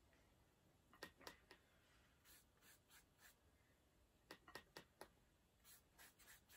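Near silence, with about a dozen faint, short, irregular taps and strokes of a paintbrush dabbing acrylic paint.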